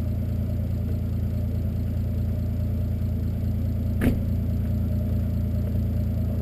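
Toyota 2JZ-GTE straight-six with a Turbonetics T70 single turbo and a 3-inch catless exhaust idling steadily, still cold after a cold start in freezing weather. There is a brief click about four seconds in.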